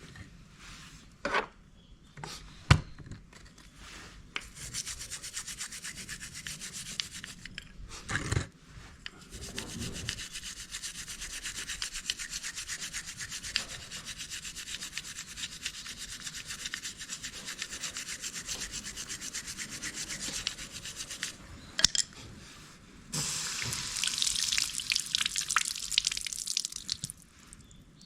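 Fast back-and-forth hand scrubbing on scooter front-brake parts during cleaning. A few clicks and knocks come first, then a long run of quick rubbing strokes from about four seconds in. After a short break, a louder spell of rubbing follows near the end.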